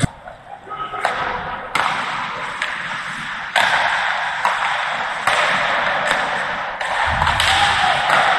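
Ice hockey rink sound: a steady hiss of arena noise with sharp taps and thumps from sticks and puck. The sound steps up abruptly a few times.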